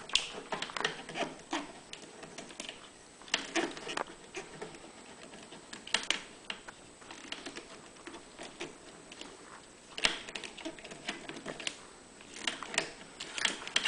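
Irregular light clicks and taps of hand work on a generator's rubber fuel hose and fittings, coming in small clusters a few seconds apart.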